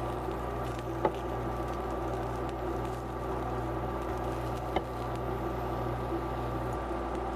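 A steady electrical appliance hum with a constant drone and a few steady tones, broken by two sharp clicks about a second in and near the middle.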